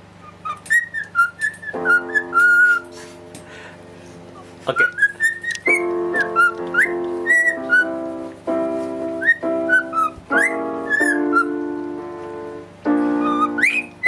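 Cockatiel whistling a tune in short notes that glide up and down, over held chords played on a keyboard.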